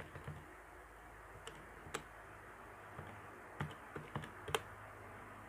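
Light, scattered key clicks, about eight irregular presses in a few seconds, over a faint steady electrical hum.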